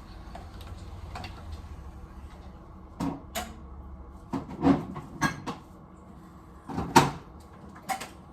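Chips being bitten and chewed close to the microphone: a handful of sharp, irregular crunches, the loudest about seven seconds in. Under them is a low hum that fades out a few seconds in.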